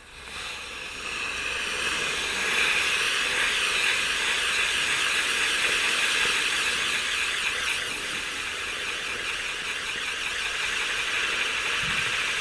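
Astra Ring of Fire firework wheel burning, its drivers giving a steady hiss as they spin it. The hiss builds over the first couple of seconds after lighting, then holds.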